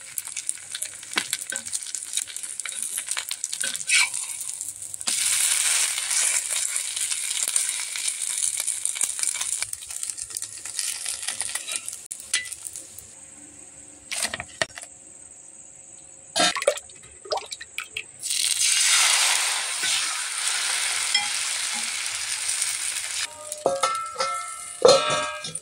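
Rice-batter chilka roti sizzling in oil on a hot tawa. The hiss comes in two loud spells, each starting suddenly, with a quieter gap between them. Sharp clicks of a utensil on the pan run throughout.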